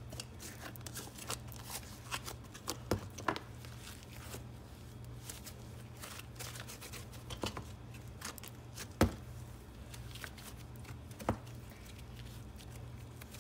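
Soft clay-mixed glue slime being stretched, folded and pushed into a plastic cup by hand: a run of small sticky clicks and pops, with a few louder snaps about three, nine and eleven seconds in.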